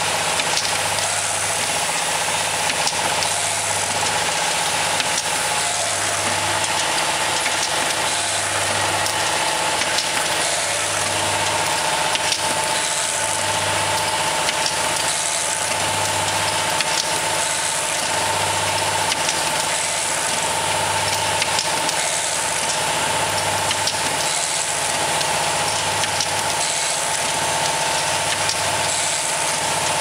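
GF-4J essential oil filling, plugging and capping machine running steadily: a constant mechanical whir and hiss, with a low hum that cuts in and out in a regular cycle roughly every one and a half seconds.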